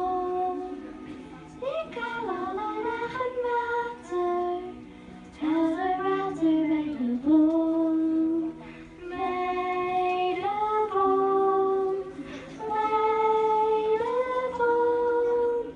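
A young girl singing a song solo into a handheld microphone. She sings it in phrases of long held notes, with short breaths between them.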